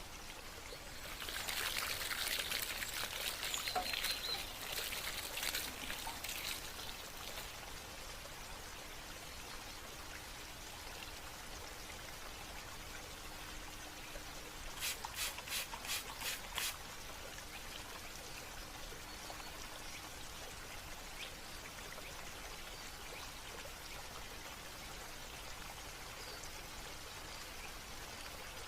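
Water trickling steadily, with a louder spell of pouring and splashing starting about a second in and lasting several seconds. About halfway through comes a quick run of six sharp ticks.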